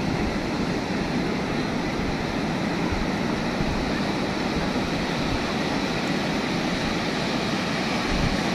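Ocean surf breaking and washing up the beach, a steady rushing of waves, with wind rumbling on the microphone.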